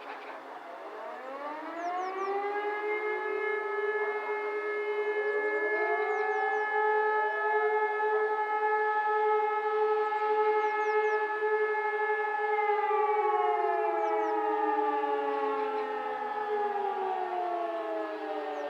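Several fire sirens, E57 motor sirens together with Hörmann electronic sirens, winding up one after another. They hold a steady, slightly discordant tone for about ten seconds and then wind down together. This is one of the sustained tones of the German 'Feueralarm' signal.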